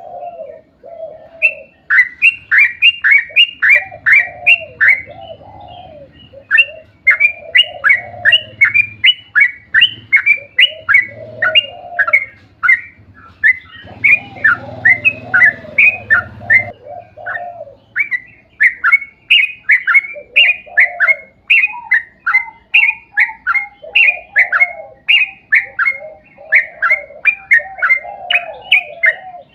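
Yellow-vented bulbul singing a long rolling song: long runs of quick, downward-slurred chirps, about four or five a second, with short breaks between runs and lower bubbling notes underneath.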